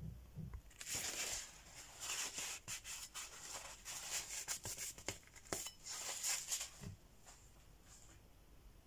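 Paper towel rustling and rubbing along a kitchen knife blade as it is wiped clean: a run of scratchy strokes with small clicks that starts about a second in and stops about seven seconds in.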